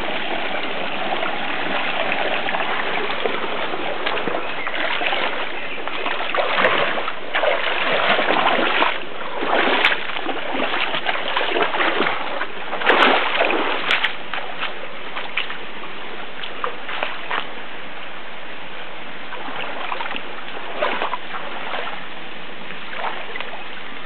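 Rushing water of a forest stream, a steady hiss, with a run of irregular louder splashing bursts between about five and fourteen seconds in.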